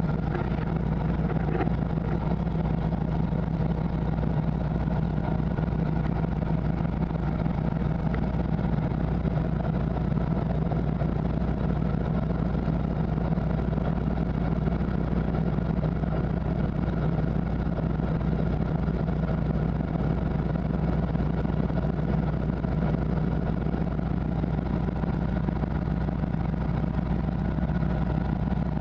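De Havilland Beaver floatplane's engine and propeller running steadily at low power as the plane taxis on the water, heard from inside the cockpit.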